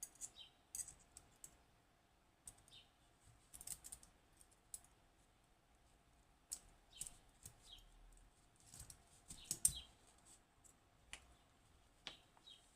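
Faint, irregular light clicks and taps of small metal lock parts being handled as a Western Electric 30B lever lock's pack is taken apart, levers and spacers lifted out one at a time.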